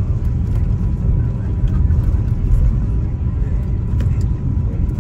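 Loud, steady low rumble inside the cabin of an Airbus A350-900 rolling down the runway just after touchdown, its wing spoilers raised.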